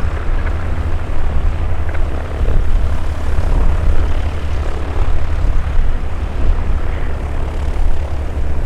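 Mooney M20J single-engine propeller plane on its takeoff run and climb, a steady loud drone of piston engine and propeller with a heavy low rumble.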